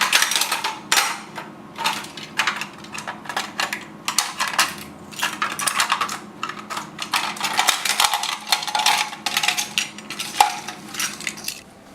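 Toy tip truck being played with: rapid, irregular clattering and clicking of small hard pieces knocking together, several knocks a second, over a faint steady hum.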